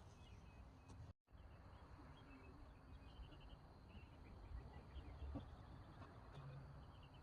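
Near silence: faint low background rumble with a few faint high chirps. The sound cuts out completely for a moment about a second in.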